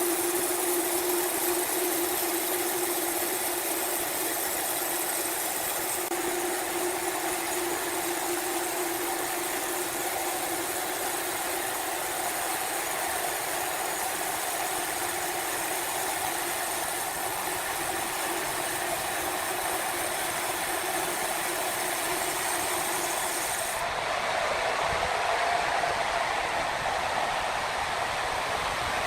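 Sawmill machinery running steadily: a continuous mechanical hum with a held tone and a noisy hiss over it. The sound shifts abruptly twice, about six seconds in and again near the end.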